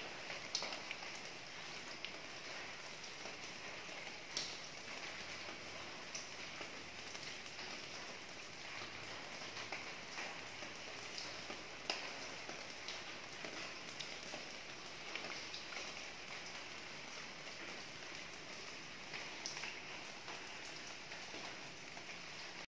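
Steady rain falling on the roof: an even hiss with scattered sharper drops ticking, the loudest about twelve seconds in.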